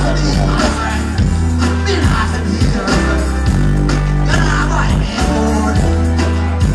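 Live dancehall music through a festival sound system: a heavy, steady bass line with a voice singing over it.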